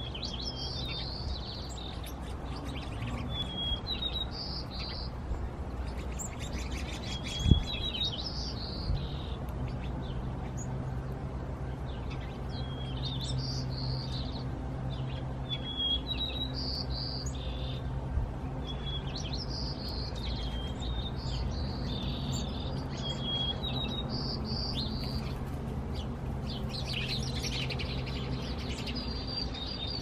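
Small songbirds chirping and calling over and over in short high phrases, over a steady low hum. There is a single dull thump about seven and a half seconds in.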